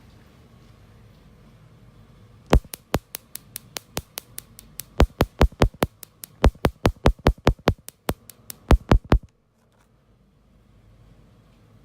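A series of sharp, loud clicks, spaced irregularly at first and then coming about four or five a second, stopping abruptly.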